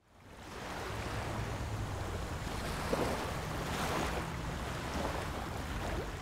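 Ocean waves and surf, fading in over about the first second into a steady rushing noise.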